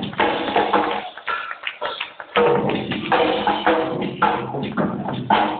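Live band music with drums, loud and continuous. About a second in, the bass and drums drop out for about a second, leaving the higher instruments. They come back in together with a strong hit.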